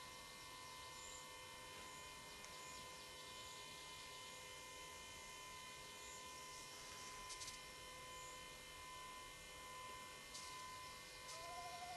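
Near silence: a steady electrical hum and hiss in the recording, with faint high chirps now and then and two soft clicks. Near the end a rising whine begins.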